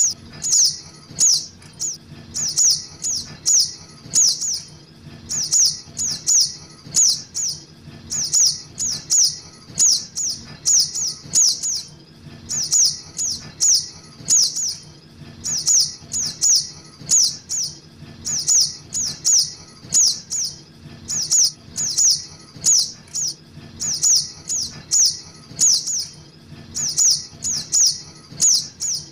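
Juvenile sogok ontong (little spiderhunter) calling: high, thin, falling chirps in quick runs of three or four, repeated about once a second as a looped bird-lure recording. A faint steady low hum runs underneath.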